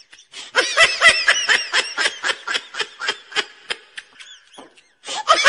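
High-pitched laughter: a rapid string of ha-ha pulses, about five a second, fading away about four seconds in and starting again just before the end.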